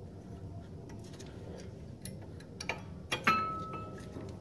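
Brake pad being fitted into the caliper bracket's abutment clips: small metallic clicks and scrapes, with a sharper metal clack a little after three seconds that rings briefly.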